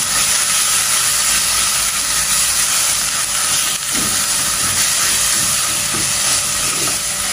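Ground spice paste and tempoyak (fermented durian paste) sizzling in hot oil in a pot while being stirred with a spatula: a steady hiss with a couple of soft scrapes.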